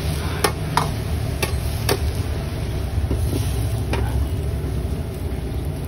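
A metal ladle clinks against a wok about four times, then a metal pot lid clanks once as it is set on, over a steady low rumble.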